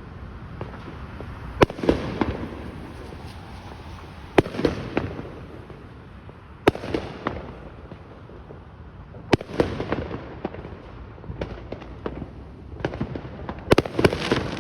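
Fireworks going off: a sharp bang every two to three seconds, each followed by crackling and rumble, with a quick cluster of bangs near the end.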